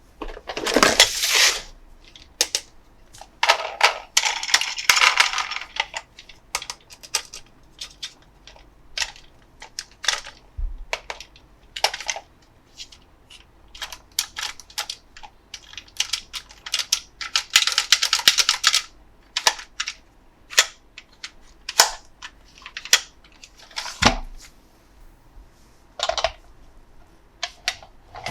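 Hard plastic toy parts clicking, tapping and knocking as they are handled and fitted together, irregular and close up, with a few stretches of rustling or scraping.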